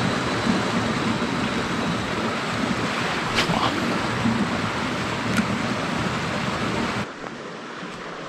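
Wind buffeting the microphone: a steady rushing noise with a fluttering low rumble, which drops to a much quieter hiss about seven seconds in.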